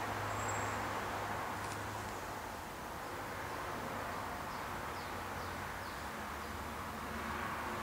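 Steady background noise, with a few faint short high chirps falling in pitch about four to six seconds in.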